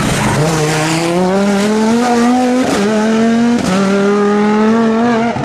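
Audi Quattro S1 rally car's turbocharged five-cylinder engine accelerating hard, its note climbing steadily. It shifts up twice, about two and a half and three and a half seconds in, each time with a brief crack and a short drop in pitch before it climbs again.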